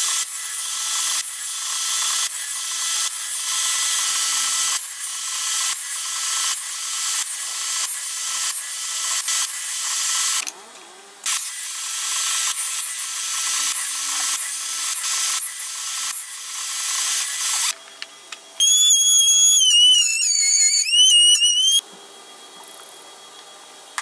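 Table saw cutting box-joint fingers into a wooden board, pass after pass: a dense high hiss of the blade in the wood with short knocks about once a second. The cutting stops briefly partway through, and near the end gives way to a high whine that wavers in pitch for about three seconds.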